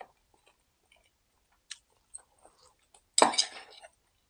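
Steel Damascus chef's knife and fork clicking and scraping on a wooden cutting board while slicing a seared ribeye, with one louder scrape about three seconds in.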